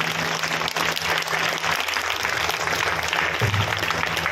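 Audience applauding steadily, with a low steady hum beneath.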